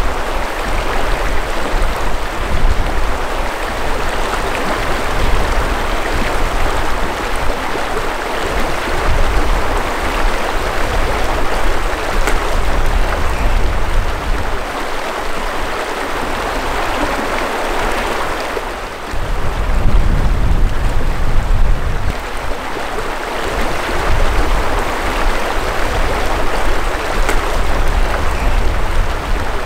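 Shallow mountain river rushing over rocks and riffles: a steady rush of water, with a low rumble that comes and goes.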